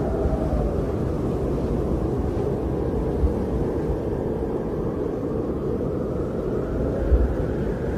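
Blizzard wind blowing in a steady low roar, with gusts buffeting the microphone and giving two low thumps, one about three seconds in and a stronger one near the end.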